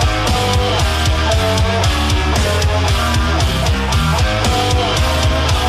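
Heavy metal music with distorted electric guitar and drums, at a steady beat.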